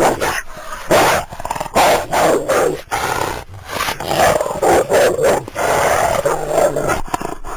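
Eurasian wolf growling and giving harsh barks in a rapid, irregular run of short bursts.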